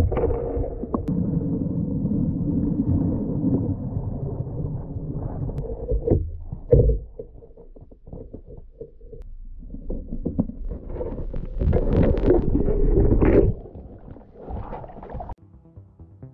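Muffled rushing and sloshing of churned pond water picked up underwater, with low rumbles and knocks. It is loudest in the first six seconds and again from about ten to thirteen seconds, and fades near the end.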